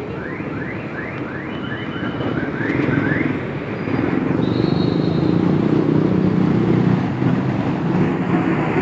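Road traffic with a heavy vehicle passing, the low engine sound growing louder from about four seconds in. A quick run of short rising chirps sounds over the traffic in the first few seconds.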